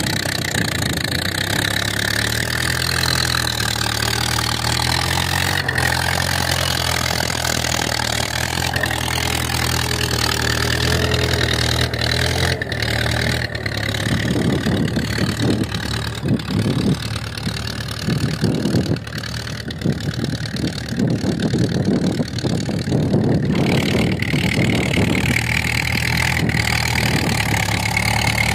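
Diesel tractor engines running under load while pulling tillage implements through dry soil. A steady low engine note holds for the first dozen seconds and again near the end. In the middle stretch the engine is fainter beneath an uneven, gusty rumble.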